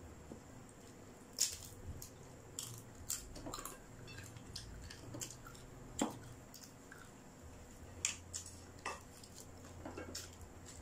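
Eating sounds: scattered sharp clicks and soft wet squishes as crispy pata, deep-fried pork knuckle, is torn apart by hand and chewed. The clicks come irregularly, about eight in all.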